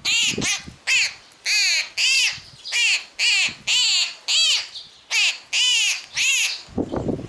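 A young bird begging for food: loud, harsh calls, each rising and falling, repeated about twice a second.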